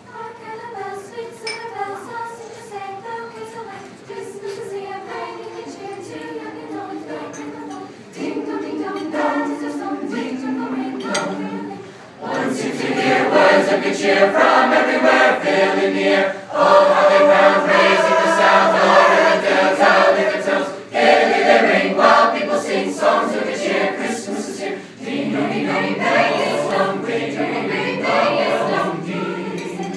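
High-school swing choir of mixed male and female voices singing in parts. It starts softly, swells about eight seconds in, and grows much louder about twelve seconds in, easing briefly near the end.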